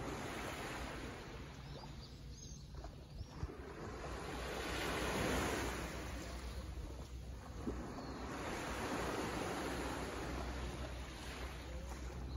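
Small waves lapping and washing onto the beach from a calm sea, swelling and falling back in slow surges.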